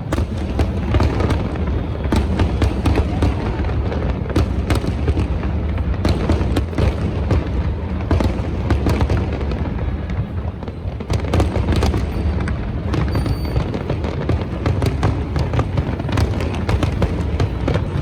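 Fireworks display: a rapid, continuous run of bangs and crackles over a steady low rumble of booms.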